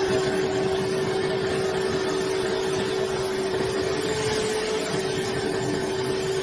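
CNC wood lathe running, a steady motor whine over the even hiss of the tool cutting the spinning wood.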